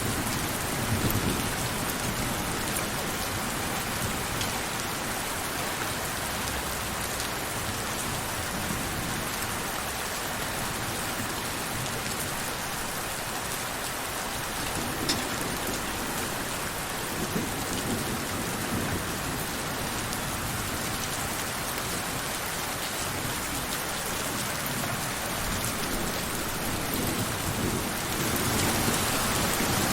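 Steady rain falling, with scattered individual drops and low rolling rumbles of distant thunder. The rain gets heavier near the end.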